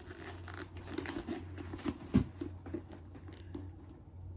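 Rustling and crinkling as a handbag is handled and opened to look inside, with a louder bump about two seconds in.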